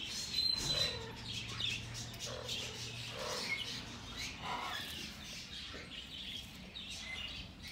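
Birds chirping, a steady stream of short, high chirps and calls.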